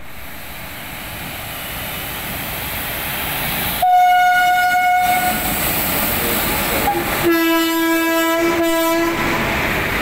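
WAG-7 electric locomotives passing at close range, the running noise of the train on the rails growing louder over the first few seconds. The locomotive's horn sounds twice: a higher blast about four seconds in lasting over a second, then a lower, slightly longer blast about seven seconds in.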